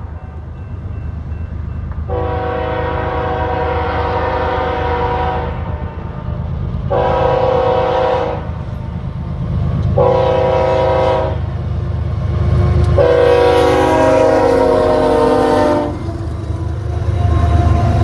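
Diesel freight locomotive air horn sounding four blasts for a grade crossing: a long blast, two shorter ones, then another long one, several notes sounding together. Underneath, the low rumble of the approaching locomotives grows louder near the end as they pass close by.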